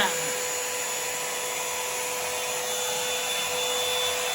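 Revlon One Step Volumizer hot-air brush dryer running steadily: an even rush of blown air with a constant motor whine.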